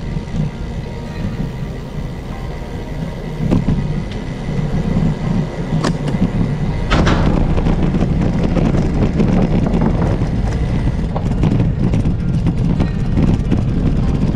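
Bicycle rolling along a paved trail with tyre rumble and wind noise on the microphone. About halfway through it gets louder, with many sharp clicks as the tyres cross the boards of a wooden bridge deck.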